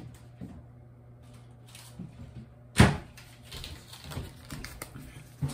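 A kitchen cupboard door shut with one sharp knock about three seconds in, followed by faint clicks and rustling of things being handled.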